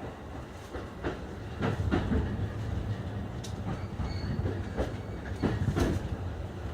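JR East E531 series electric train running at reduced speed under a strong-wind speed restriction, heard from inside the car: a steady low rumble with the wheels clicking irregularly over the rail joints.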